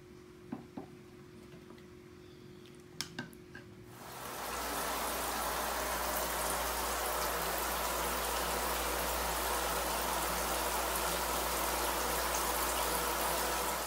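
Shower head spraying water down into an inflatable paddling pool, a steady rush that starts suddenly about four seconds in and keeps on. Before it there are only a few light clicks.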